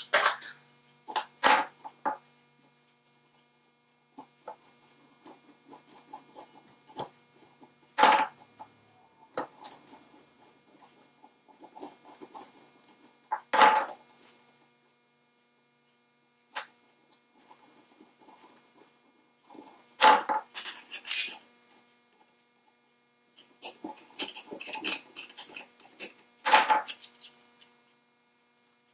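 Brass lamp-top spinnings, brass bands and steel hose clamps clinking and rattling as they are handled and fitted together for soldering. A handful of sharp metallic clinks, each ringing briefly, stand out several seconds apart among quieter scraping and rattling.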